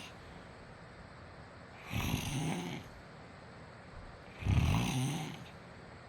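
A man snoring: two snores about two and a half seconds apart, each just under a second long with a low, wavering drone.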